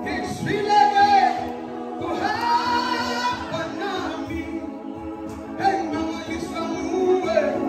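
A choir singing a gospel song, several voices together on long held notes.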